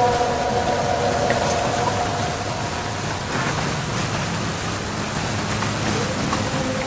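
Playback of a recording made by a phone buried in soil: a steady crackling hiss, with a faint held tone that fades within the first two seconds and comes back about six seconds in, which the uploader likens to a person crying.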